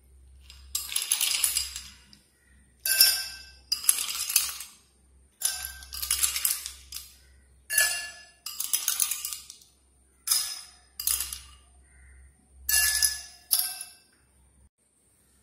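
Ice cubes dropped from a metal spoon into two tall drinking glasses, clattering and clinking against the glass with a short ringing, in about ten separate bursts.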